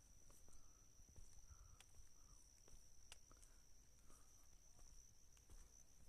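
Faint, steady, high-pitched insect trill with scattered faint clicks.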